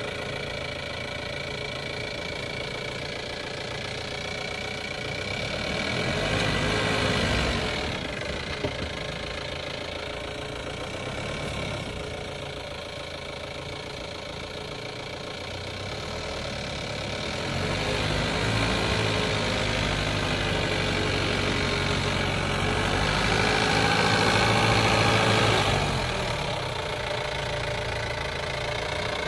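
Mahindra Bolero 4x4 pickup's diesel engine running at low revs while crawling off-road, revving up twice: briefly about six seconds in, and for a longer stretch in the second half, loudest near the end of it. A single sharp click about a third of the way in.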